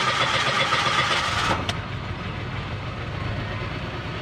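Mitsubishi Mirage G4's three-cylinder engine just after starting. A higher whine over the first second and a half ends with a click, then it settles into a steady idle. This is an engine that stalls on dropping to idle, which a later OBD scan puts down to a misfire on cylinder 3.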